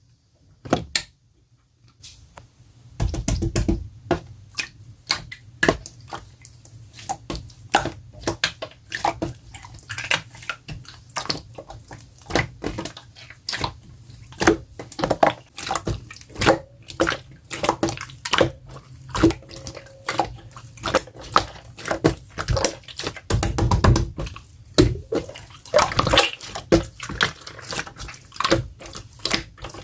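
Clear slime being squished and pressed by hand: a run of wet clicks and squelches, about two to three a second, starting a few seconds in.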